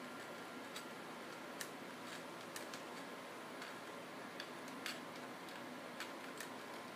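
Faint, irregular small metallic clicks of a precision screwdriver turning the tiny screws of a DJI Phantom 3 camera gimbal, about a dozen over a steady low hiss.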